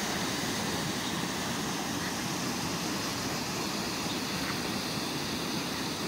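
Steady rush of a shallow creek running over rocks in small rapids.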